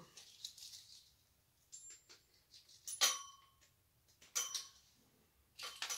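A few light clinks and clicks of costume jewelry being handled, the loudest about three seconds in and again about a second and a half later, each with a brief ring.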